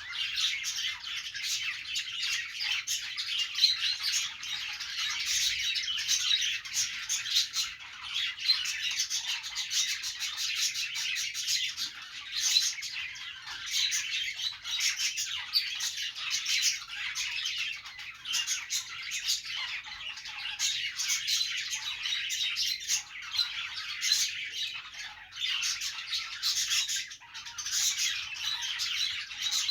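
Budgerigars chattering and chirping continuously, a dense overlapping warble of quick chirps and squawks.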